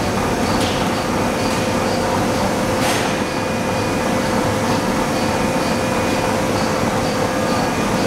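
Ring rolling mill running: a steady industrial machine hum with a constant tone, a faint regular high ticking and a short hiss about three seconds in.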